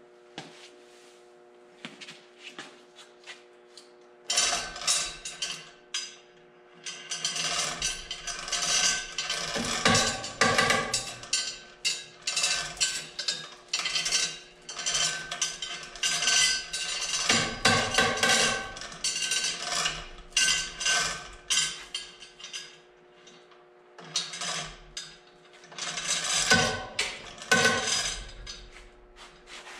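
Irregular metallic clanking and rattling as a V8 engine hanging from a shop lift is pushed and lowered into a hot-rod frame's mounting plates, over a steady low hum. The clatter starts about four seconds in, comes in busy spells, and eases briefly a few times.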